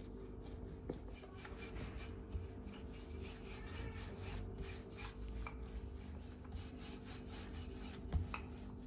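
Rolling pin rolling out pizza dough on a wooden board: faint repeated rubbing strokes, with a few light knocks of the pin on the board, over a steady low hum.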